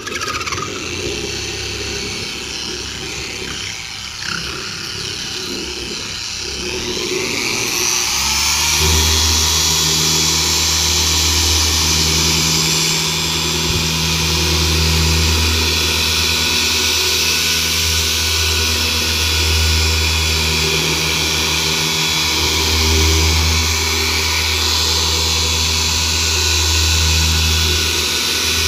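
Electric car polisher running with its pad on the paint, buffing an all-in-one polish under light pressure, little more than the machine's own weight. About seven seconds in its whine rises as it speeds up, and it then runs steadily and louder.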